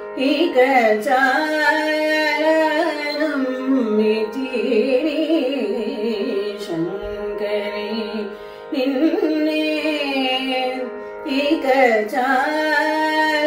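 A woman sings Carnatic vocal music in raga Pantuvarali, Mishra Chapu tala, over a steady drone. After one sung syllable near the start she holds long, gliding, ornamented phrases on the vowels. There is a brief breath-break partway through.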